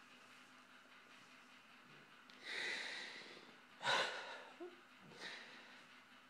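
A man crying: after a couple of quiet seconds, a long noisy breath, then a sharp gasping sob about four seconds in and a weaker one a second later.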